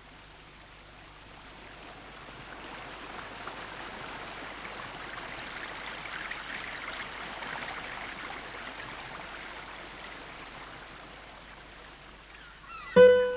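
Rushing water, a steady hiss that swells up and fades away again, with a plucked guitar coming in right at the end.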